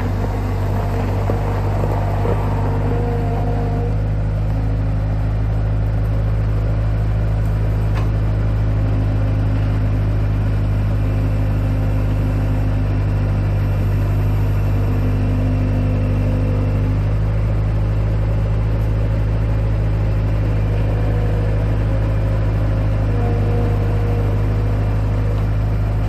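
Gas engine of a Norwood LM30 portable band sawmill running loud and steady under load as the band blade saws a sinker cypress log into 2-inch slabs.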